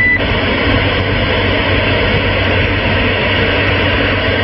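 CB radio receiver on 27 MHz with the squelch open between transmissions, giving a loud, steady static hiss through its speaker. A short high beep sounds right at the start.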